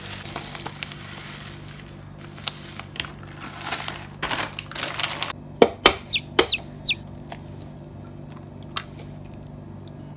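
Oats pouring and rustling out of a plastic packet into a plastic blender jug, then an egg knocked sharply against the jug about three times about halfway through, and one more crack near the end as it is broken open.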